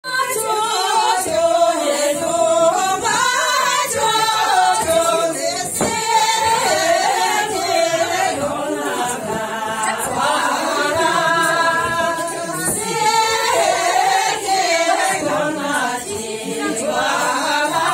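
A group of women singing together unaccompanied, a Tibetan circle-dance song of long held, gliding phrases. A few sharp knocks, such as one about six seconds in, sound through the singing.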